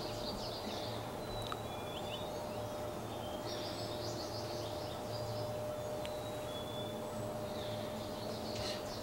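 Outdoor field ambience: songbirds chirp in three short spells, near the start, in the middle and near the end, over a low steady hum and a faint steady whine.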